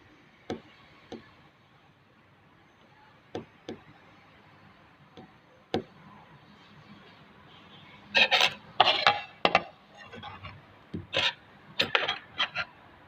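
Scattered light knocks and clicks, then several loud bursts of rubbing and scraping in the second half, as hard parts or tools are handled and worked.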